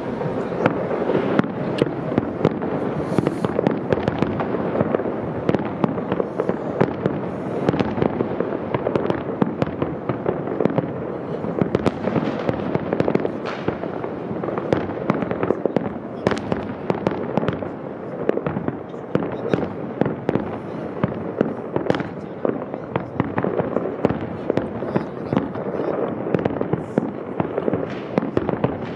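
Fireworks display: a dense, unbroken barrage of crackling, with many sharp bangs each second.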